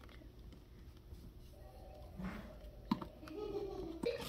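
A cardboard box lid being handled and picked at, with a few soft clicks and taps, while a child hums faintly in the second half.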